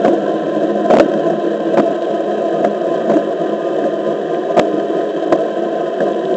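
Onewheel XR electric board rolling over asphalt, heard up close from the board: a steady rolling noise with a faint, even whine, broken by a few sharp knocks.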